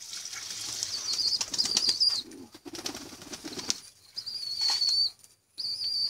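Pigeons flapping their wings in a quick flurry of wing claps lasting about two seconds, with three long, high, thin whistled squeals.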